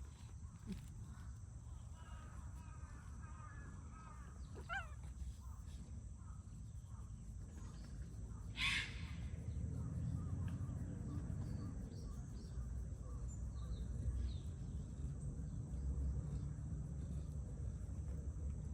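Outdoor park ambience: a steady low rumble with scattered bird calls, including a short pitched call about five seconds in and one harsh, raspy call a few seconds later.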